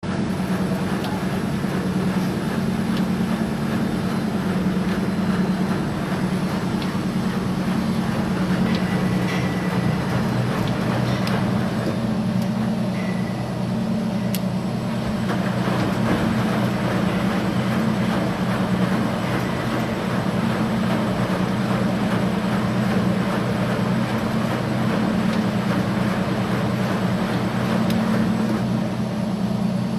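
Steady mechanical drone of machinery running, an unbroken low hum with a noisy haze above it and no change in level.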